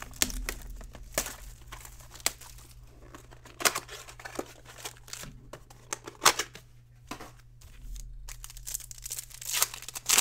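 Plastic and foil wrapping crinkling and tearing as a sealed trading card box and its packs are opened by hand: irregular crackles with a few sharper snaps.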